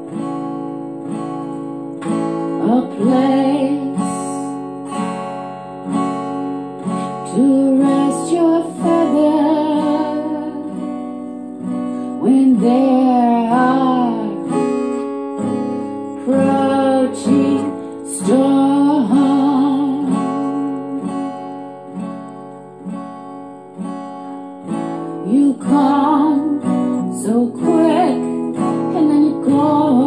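Music: acoustic guitar strummed in steady chords, with a woman's voice singing a slow, wavering melody over it in several phrases.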